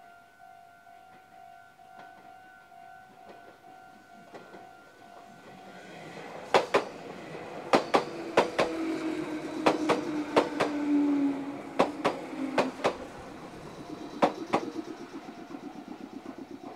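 Level crossing alarm sounding steadily, then a Meitetsu 6500 series electric train passes close by, its wheels knocking over rail joints and the crossing in a run of sharp, loud clacks. A low whine from the train sounds in the middle of the pass.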